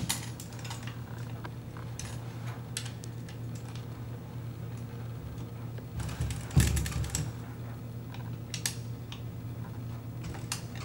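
Scattered light metallic clicks and clinks as a hand tool works the steering bolt inside a knee walker's handlebar stem, tightening it. There is one louder knock about six and a half seconds in.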